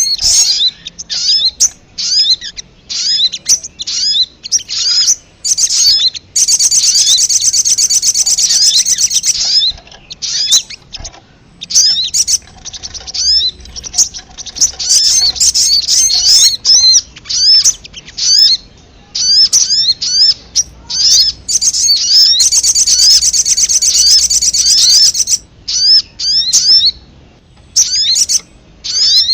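Sogok ontong (little spiderhunter) lure call: a rapid, busy series of sharp, high chirps, each sweeping downward. Two longer buzzing trills come in, one several seconds in and another past the two-thirds mark.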